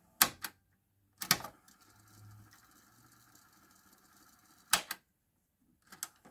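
Pyle PT-659DU cassette deck's transport keys clunking as they are pressed: a pair of clicks, then another key, then a faint steady whir of the tape winding fast for about three seconds. A key clunks again to stop it, and more clicks follow near the end.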